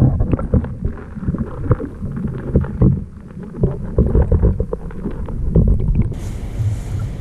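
Muffled water sloshing and bubbling with irregular low thumps and knocks, heard from a camera held under the water surface as a released bream kicks away. About six seconds in, the camera comes out of the water and the sound opens up to an airy hiss.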